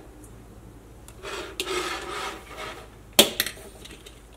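A stainless steel bowl and a mixer-grinder jar handled on a tabletop: a scraping rub as something slides across the surface, then a sharp knock a little after three seconds in, as when the jar is set down. The grinder's motor is not running.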